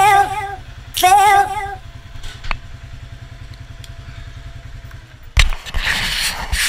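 Street-legal ATV engine idling with a steady rapid low pulse, with wavering singing over it for the first couple of seconds. About five seconds in, the idle sound gives way to a loud rough rumble with several thumps.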